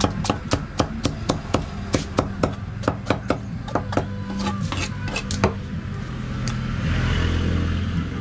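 A knife scraping scales off a large snakehead fish on a wooden block: quick, even clicking strokes, about four a second, that stop after about five seconds. A low rumble and hiss swell up near the end.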